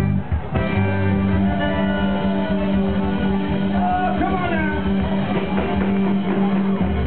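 Live Cajun band playing an upbeat number through stage speakers: fiddle and guitars over a steady beat.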